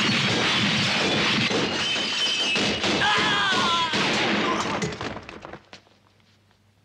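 A rapid volley of pistol shots with glass shattering, and a voice crying out about three seconds in. The shooting dies away about five seconds in.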